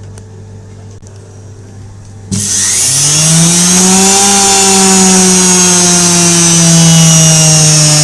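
Brushed universal motor from an automatic washing machine, powered directly from mains with its carbon brushes and field coil bridged, starting about two seconds in. It spins up with a rising whine and a loud hiss of the carbon brushes, then runs at high speed with the pitch holding nearly steady: the motor works.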